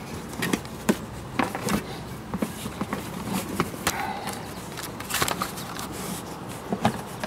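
Irregular knocks and clicks of a plastic drive-belt cover being tugged and wiggled by hand. It will not come off because one bolt is still in.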